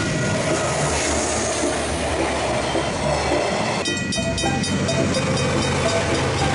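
Diesel freight trains passing railway level crossings while the crossing bells ring. About four seconds in, the sound cuts abruptly to another crossing, where rapid, evenly spaced bell strokes ring over a KiwiRail diesel locomotive running past.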